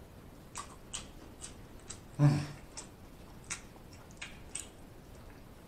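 Mouth sounds of a person eating: scattered wet smacks and clicks of chewing. About two seconds in comes one short, louder, low vocal sound from the throat, falling in pitch.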